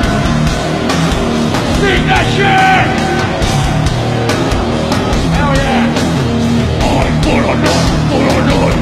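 Loud rock music with a steady drum beat.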